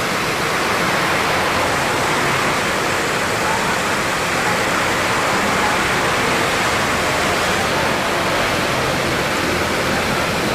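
Steady rushing, hiss-like noise of a 2018 Subaru Impreza 1.6 running with its air conditioning on, with no abnormal noise from the compressor after repair.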